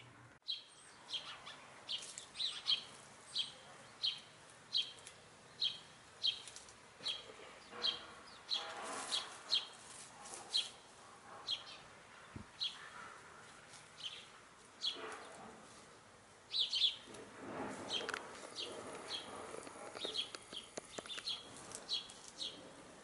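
A small bird chirping over and over, one short high chirp about every second or a bit faster, with a couple of lower, noisier sounds in between.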